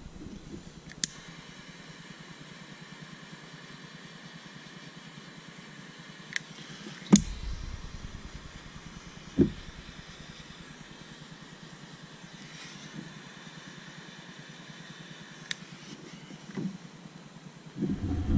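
Small handheld butane torch lit with a click about a second in, its flame hissing steadily while it heats a wire splice. A few sharp clicks and knocks of handling sound over it.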